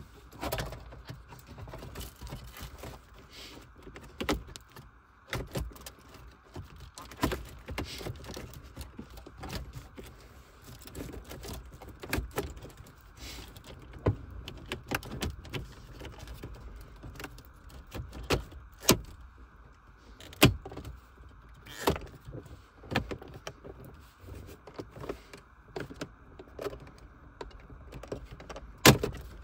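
Irregular sharp clicks and knocks of small hard parts being handled and worked on, several a few seconds apart, over a faint steady hum.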